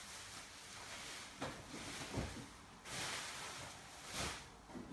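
Plastic packaging rustling and crinkling in several bursts as a boxed drone is pulled out of its wrapping, with a few soft knocks of the cardboard box.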